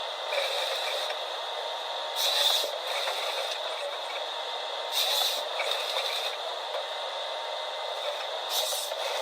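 Forestry harvester at work: a steady mechanical din with short hissing bursts about every three seconds.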